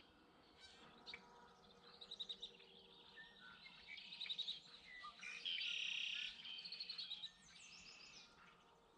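Songbirds singing and chirping, with repeated rapid trilled phrases. The loudest is a dense buzzy trill about halfway through, lasting under a second.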